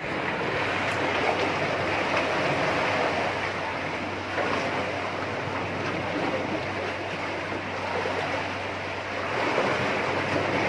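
Sea water washing and splashing around the wooden pilings beneath a pier: a steady surf noise.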